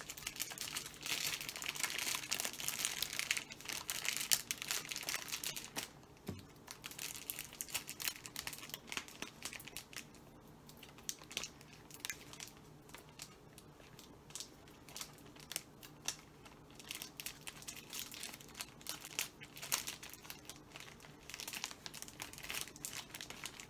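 Clear plastic treat bag crinkling as it is worked down tightly over a bottle by hand. The crinkling is busiest for the first few seconds, lighter through the middle, and picks up again near the end.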